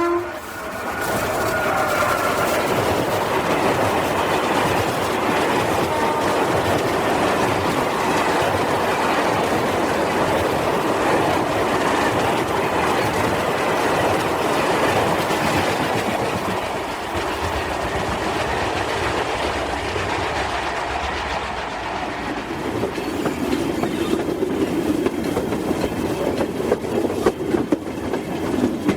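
Freight train rolling past, a steady heavy rumble of wagon wheels on the rails. In the last few seconds the clickety-clack of wheels over rail joints becomes sharper and more uneven.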